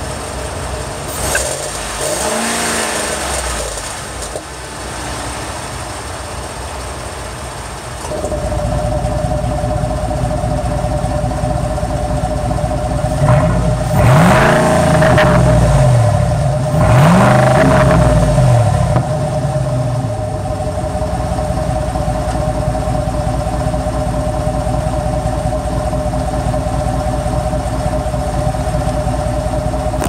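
2009 Ford F-150's 5.4-litre three-valve V8, fitted with an electric exhaust cutout, idling. The exhaust note jumps louder suddenly about eight seconds in. The engine is then revved twice, each rev rising and falling in pitch, before it settles back to a steady idle.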